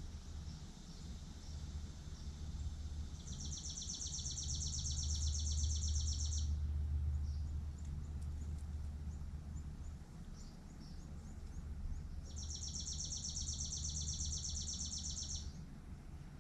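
A songbird's high, rapid, even trill, about three seconds long, sung twice with a pause between, and short chirps in the gap. A steady low rumble runs underneath.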